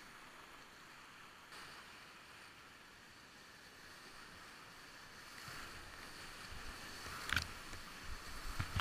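Big-water whitewater rapid rushing and churning around a kayak paddling through it, a steady hiss of water that grows louder in the second half, with sharp splashes about seven seconds in and again near the end.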